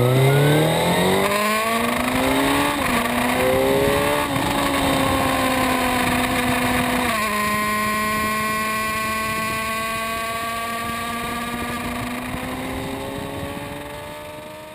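Suzuki GSX-R1000 inline-four sportbike engine accelerating through the gears. The pitch climbs and drops at upshifts about 3, 4 and 7 seconds in, then holds and creeps slowly higher at speed, over a rush of wind. It fades out near the end.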